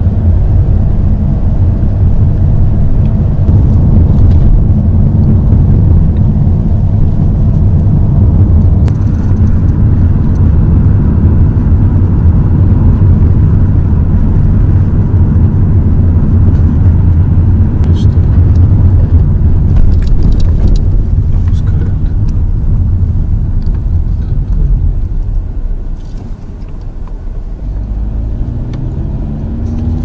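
Car interior road noise while driving: a steady low rumble of engine and tyres. Near the end it eases off briefly, then the engine note climbs as the car speeds up again.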